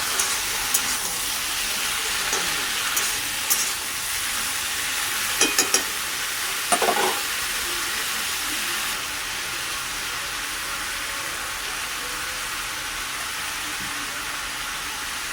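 Food frying in a pan with a steady sizzle. A few sharp metal clinks come from stirring about five and a half and seven seconds in, and the sizzle eases slightly about nine seconds in.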